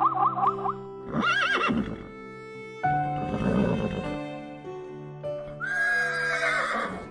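Animal calls over steady background music: a short wavering call about a second in, a rough low call around three seconds, and a longer high call near the end.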